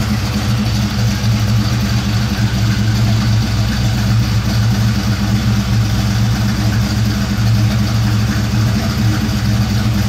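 1956 Chevrolet 3100 pickup's engine idling steadily.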